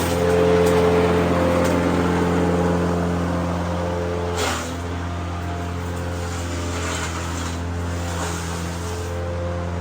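A grass-chopping machine's motor running steadily, with a brief rush of noise about four and a half seconds in, after which it runs a little quieter.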